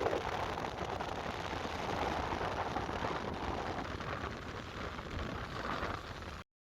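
Wind buffeting the microphone outdoors: a rough, rushing roar with a low rumble underneath. It cuts off abruptly a little before the end.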